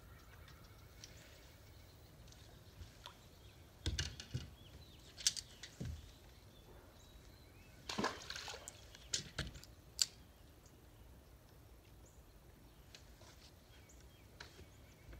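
Knocks and clunks on a bass boat deck as a caught crappie and tackle are handled, with a short rush of splashing water about eight seconds in.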